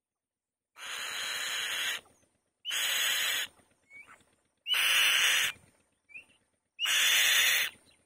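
Female black-shouldered kite on the nest giving four harsh, hissing screeches, each about a second long and about two seconds apart. Two short faint calls come between them.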